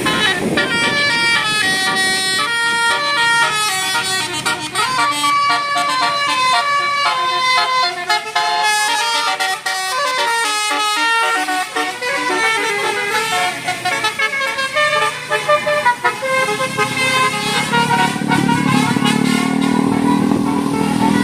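A bus's Basuri 'telolet' musical air horn playing a fast tune of short stepped notes, one after another. A low engine drone comes in near the end.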